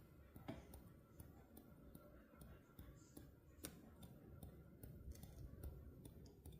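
Near silence with faint, irregular clicks, a few a second, over a low rumble.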